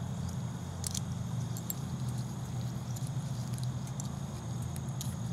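Wood fire burning in a Bushbox XL twig stove under a pot of water coming back to a boil: a steady low rumble with scattered crackles and ticks.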